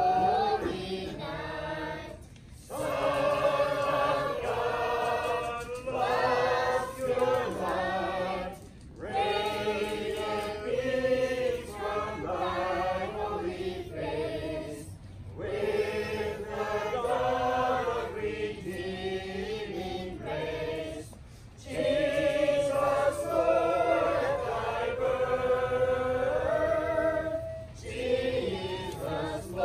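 A group of carolers singing together without accompaniment, in phrases with brief pauses between them.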